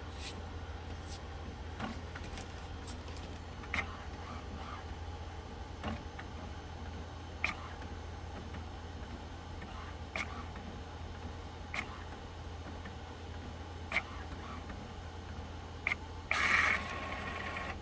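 HP OfficeJet Pro 8710 inkjet printer working through its printhead alignment: sharp mechanism clicks about every two seconds over a steady low hum, then a motor whirring for about a second near the end.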